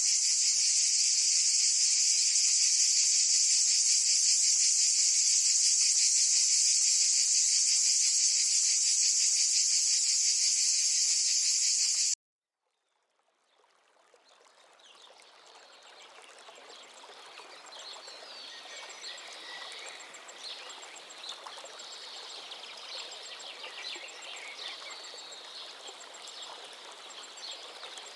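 A loud, steady, high-pitched chorus of insects such as crickets, which cuts off abruptly about twelve seconds in. After a second of silence, a quieter outdoor ambience fades in with birds chirping and small insect calls.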